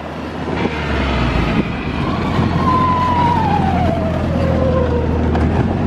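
Snowmobile under way on a snow trail, its engine and drive running with a steady drone, and a whine that drops steadily in pitch through the middle as it eases off.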